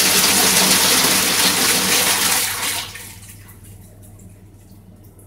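Public toilet flushing: a loud rush of water that cuts off sharply about three seconds in, leaving a faint trickle and a low steady hum.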